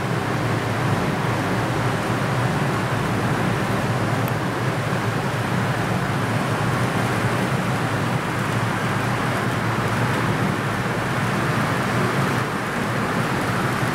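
HO-scale model trains running on the layout: a steady rumble and hiss that holds level throughout.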